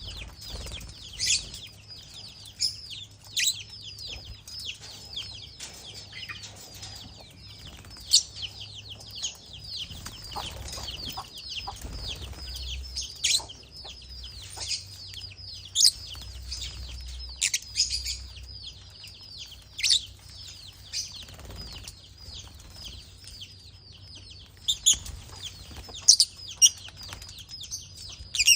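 Lovebird chattering: a fast, unbroken run of short high chirps, with louder sharp calls standing out every second or two.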